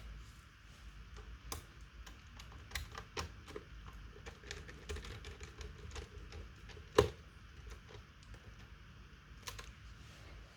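Irregular clicks and taps of keys on a laptop keyboard, with one louder knock about seven seconds in.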